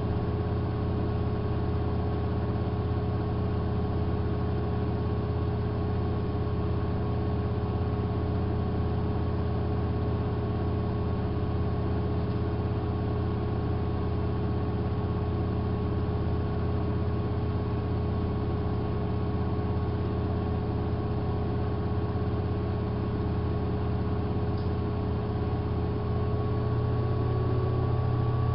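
Hanseatic HWM814A3D washing machine running with a steady hum and motor whine as the drum spins. Near the end the whine rises a little in pitch and the sound gets louder as the drum speeds up.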